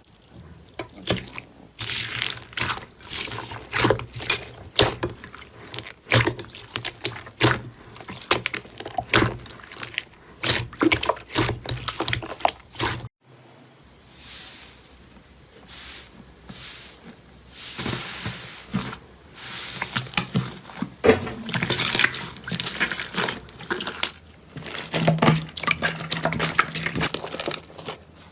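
Slime being squished and worked by hand: irregular wet squelches and small clicking pops, with a short break about halfway through.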